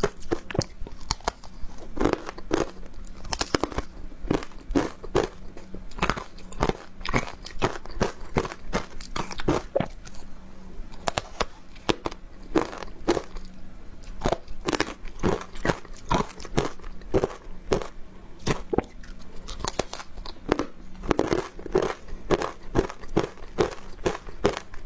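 Close-miked biting and chewing of frozen matcha powdered ice, a dense run of irregular crisp crunches several times a second.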